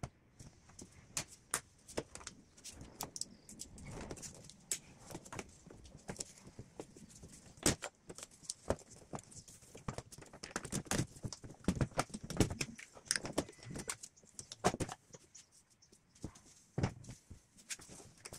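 Irregular clicks, knocks and light rattles of hands and tools working on plastic parts under a car's bonnet, scattered through the whole stretch with no steady rhythm.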